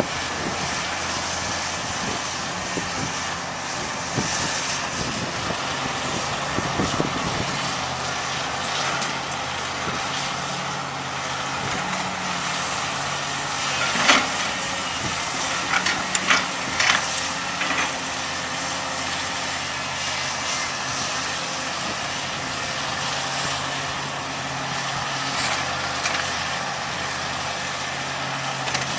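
Diesel engines of heavy earthmoving equipment (a tracked loader and a hydraulic excavator) running steadily under work, with a few sharp knocks around the middle.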